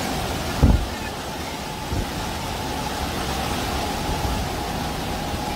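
Rough storm surf breaking along a seafront: a steady rushing roar of water. A low thud comes about half a second in and is the loudest moment, with a smaller one about two seconds in.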